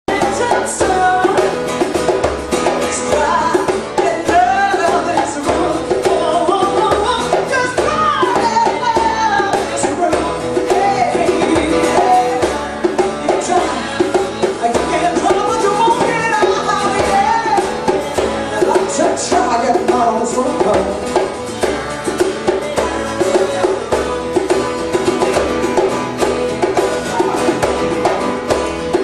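Live acoustic music: a woman singing over a strummed acoustic guitar, with a hand drum and a second small plucked string instrument keeping a steady rhythm.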